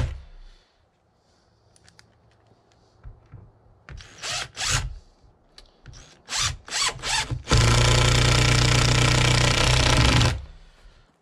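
Cordless drill-driver sending a screw through a steel hinge into wood. After a few short bursts, the motor runs steadily for about three seconds and winds down near the end.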